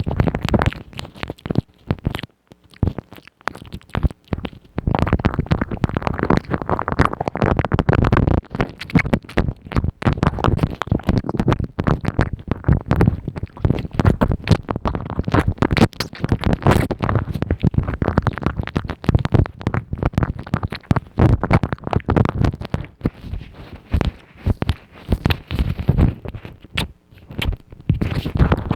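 Close-miked ASMR mouth sounds: a dense, continuous stream of wet clicks and smacks, quieter for a moment about two seconds in.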